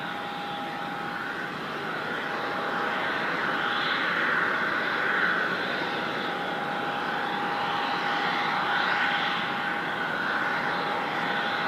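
Airliner engines running: a steady rushing noise with a steady whine, growing louder from about two seconds in.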